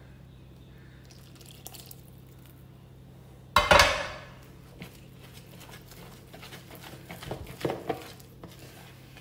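A spiced chicken-stock liquid is poured into a bowl of flour-coated chicken with one sudden splash a few seconds in. After that a metal spoon stirs the batter, knocking and scraping against the bowl in quick small clicks.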